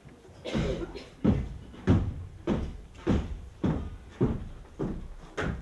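Heavy, evenly paced footsteps on a stage floor, about nine thuds, roughly one every 0.6 seconds.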